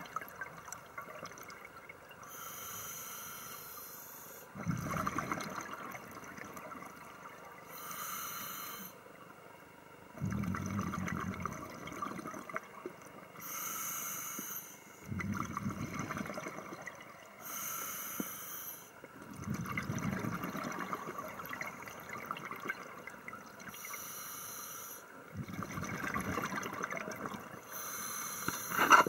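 A scuba diver breathing through a regulator, heard underwater. A hissing inhale through the demand valve alternates with a bubbling rumble of exhaled air, the cycle repeating every five to six seconds. There is a short, sharp knock right at the end.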